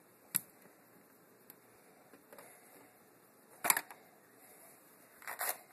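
Sharp plastic-and-metal clicks of a screwdriver and fingers working the terminals of a thermostat wall plate: a single click about a third of a second in, a loud cluster of clicks a little past halfway, and a short rattle near the end.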